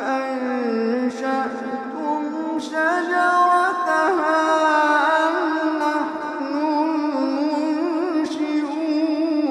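Quran recitation in a melodic, drawn-out style: a single reciter's voice holding long notes with wavering, ornamented pitch.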